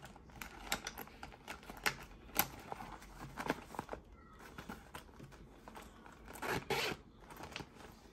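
Irregular crinkling and tearing of handled packaging, like plastic or paper being crumpled and opened, with a louder spell of crackling near the end.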